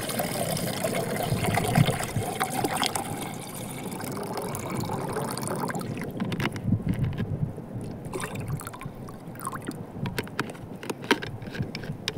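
Water pouring from a plastic bottle into a stainless steel pot, a steady splashing rush that stops about halfway through. After it, a few light clicks and taps.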